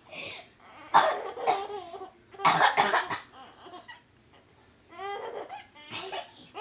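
Someone coughing, about four sharp coughs, with a baby giggling between them.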